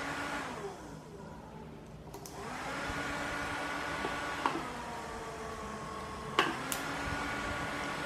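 Small electric motors of a dual 12 V car fan whirring, run from a 12 V power supply through bare wire clips. The whir drops away shortly after the start, spins back up about two seconds in and then runs steadily, with a few sharp clicks.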